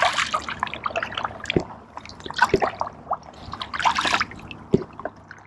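Kayak paddle strokes in calm water: the blade splashing in and water dripping and trickling off it, in a few uneven surges with small knocks in between.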